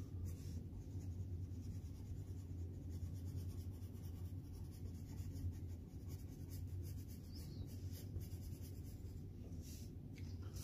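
Black coloured pencil scratching steadily across paper as it shades in shadows, over a steady low hum.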